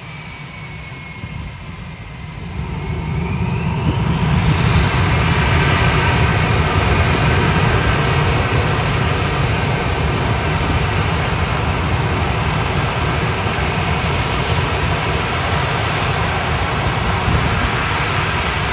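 Blue Angels F/A-18 Super Hornets' jet engines running on the ramp. A whine falls in pitch and then rises about two to three seconds in as an engine spools up, swelling into loud, steady jet engine noise that holds to the end.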